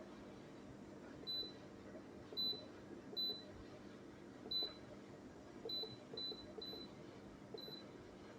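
Eight short electronic beeps at one high pitch, unevenly spaced like buttons being pressed one after another on a keypad, over a faint steady hum.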